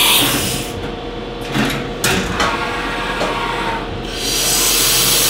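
1995 Haas VF-3 CNC mill between cuts: the hiss of its flood coolant spray and cutting stops near the start. For about four seconds only the machine's steady hum is heard, with a few short clicks and knocks. Then the steady hiss starts again.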